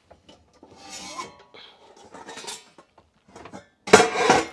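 Metal pots and pans clattering and scraping as a pot is taken out and handled, with a brief ringing about a second in and the loudest clank near the end.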